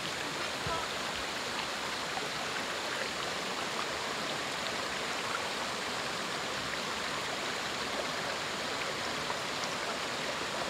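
Shallow stream flowing steadily over rocks and spilling down a small rocky cascade into a pool.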